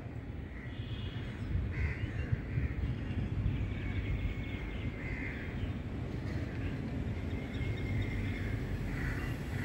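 Crows cawing, a string of short, harsh calls roughly once a second, over a steady low background rumble.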